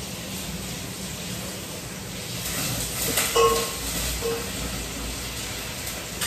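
Sliced onions frying in hot oil in a pan, a steady sizzle. A little past halfway there are a few sharp metal clinks with a short ring, like a utensil knocking the pan.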